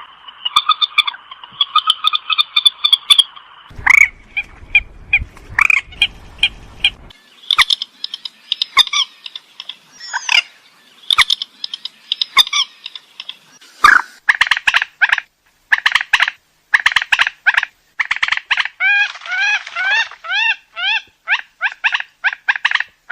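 Rail (burung mandar) calling: fast runs of short, harsh, pitched notes, many sliding up or down, repeated in quick series that speed up in the second half. A low rumble sits underneath for a few seconds about four seconds in.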